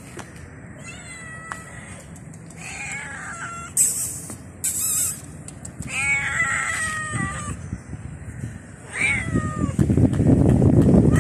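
Tabby-and-white stray cat meowing about four times, the call a little past the middle the longest and strongest. Two short hissy bursts come in the middle, and a loud rushing noise starts near the end.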